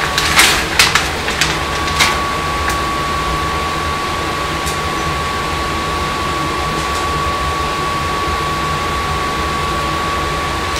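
A plastic bag of shredded cheese crinkling and rustling for about two seconds as the cheese is shaken out, over a steady background hum with a thin high whine that carries on alone after.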